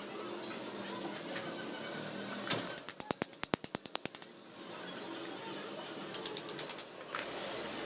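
Ratchet wrench clicking in two quick runs of rapid, even clicks, the first longer than the second, as bolts are turned during engine assembly.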